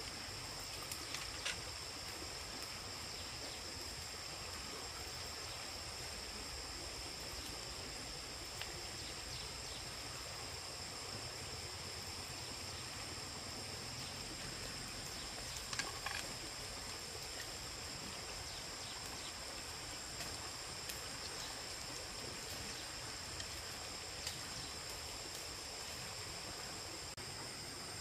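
Steady insect chorus, a continuous high buzzing at two pitches. A few short clicks or taps cut in, the loudest about halfway through.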